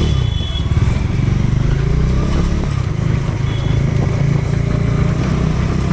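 Motorcycle engine idling with a steady low pulsing rumble, amid city traffic.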